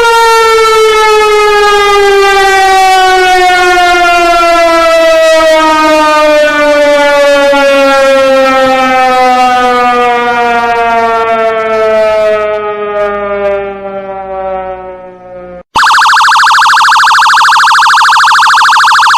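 A siren winding down, its pitch sliding slowly and steadily lower as it fades out about three-quarters of the way through. It then cuts abruptly to a different, harsh steady alarm tone with a rapid buzzing flutter.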